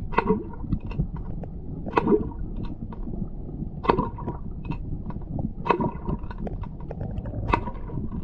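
H&H Big Ballin' Cork popped along a pool's surface, heard from underwater: a sharp, loud pop and splash about every two seconds, with smaller clicks between the pops.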